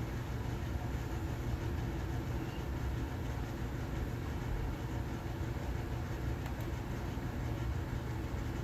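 Steady low rumble of background noise, with no speech.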